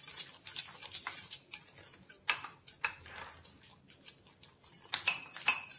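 Steel spoon scraping and clinking against a glass bowl as a thick, coarse ground chana dal paste is stirred and pushed together: irregular clicks and scrapes, with a quieter stretch midway.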